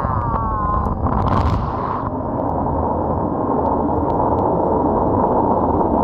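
Quad bike (ATV) engine running at speed on a wet road, with wind rushing over the microphone. A short falling whine at the start, then a brief hiss of water spray about a second and a half in.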